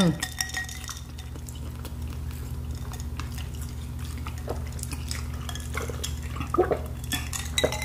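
Eating noises: scattered soft clicks and taps of fingers picking food from a metal tray of seafood boil, and a glass of water being lifted and sipped, over a steady low hum.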